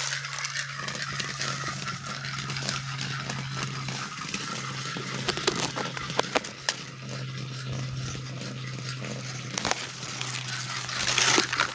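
Dry fallen leaves rustling and crackling, with scattered sharp clicks, over a steady low hum.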